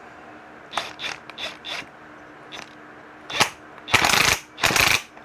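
Ratchet wrench with a 13 mm socket clicking while tightening the flywheel nut on a Poulan P3314 chainsaw: a few separate clicks, then two longer, louder runs of ratcheting near the end.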